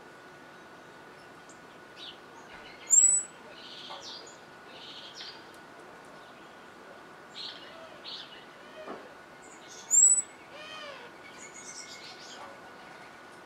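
Wild songbirds calling in the background: two loud, short, high whistled notes, about three seconds in and again near ten seconds, among scattered fainter chirps.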